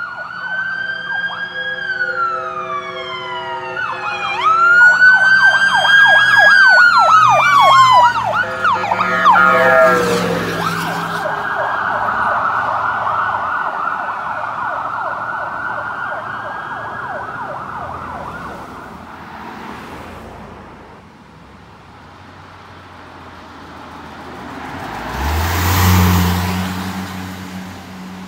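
Emergency vehicle sirens passing, going from a slow rising and falling wail into a fast yelp, their pitch dropping as they go by and fading away. Near the end a vehicle drives past close by with a swell of engine and tyre noise.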